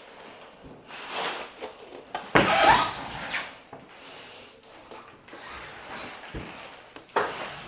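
Rubbing and scraping noises of something being handled and shifted. The loudest scrape comes about two and a half seconds in, with a brief squeak in it.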